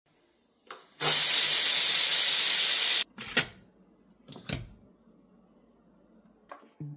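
Stainless-steel pressure rice cooker venting its pressure through the valve: a loud steam hiss about two seconds long that cuts off sharply. A few clicks and knocks of the lid being worked follow.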